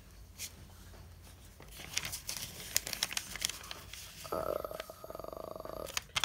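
A sheet of colored origami paper being folded and creased by hand, crinkling and crackling, with a few sharp clicks. About four seconds in, a steady buzzing tone runs for under two seconds and stops.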